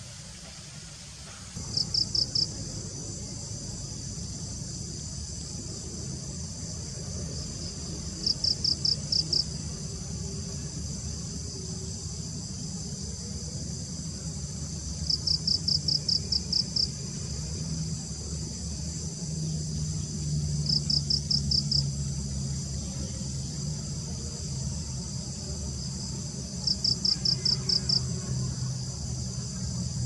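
Insects chirping: a steady, high, buzzing chorus starting about a second and a half in, with a louder trill of five to nine quick pulses repeating about every six seconds. A low rumble runs beneath.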